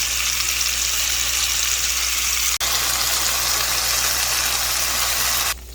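Flat iron steak searing in hot olive oil in a pan: a loud, steady sizzle, broken by a split-second gap about two and a half seconds in.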